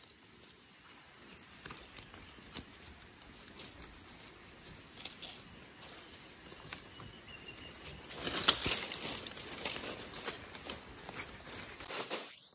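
Rustling and scattered light taps and crackles, busier and louder about eight seconds in.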